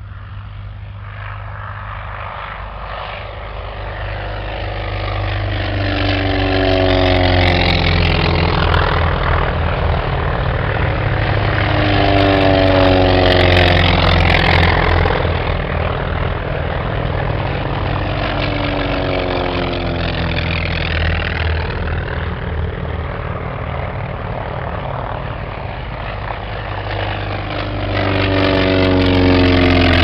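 Propeller warplanes' piston engines running at takeoff power as the aircraft take off one after another. A deep engine drone swells and fades four times as each plane passes, loudest as the last one goes by low and close near the end.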